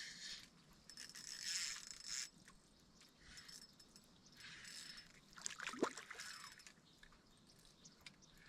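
Faint water splashing and trickling, coming in several short spells.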